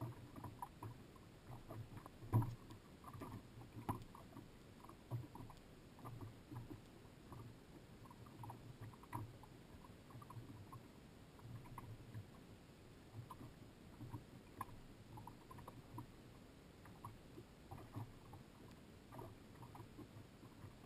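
Small waves lapping and slapping against the hull of a drifting small boat with its engine off. It is a low, irregular patter of soft knocks and splashes, with one louder knock about two and a half seconds in.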